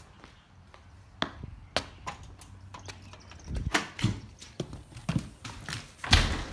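Irregular footsteps and knocks, busier in the second half, with one loud thump near the end.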